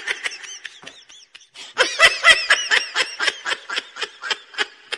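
A person laughing in a quick run of short, pitched ha-ha bursts, about five a second, loudest in the second half.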